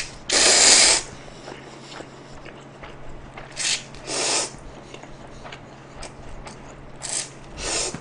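A person slurping spicy mixed buckwheat-style instant noodles off chopsticks in five short slurps, the first and loudest about half a second in, two more around four seconds in and two near the end, with small wet clicks in between.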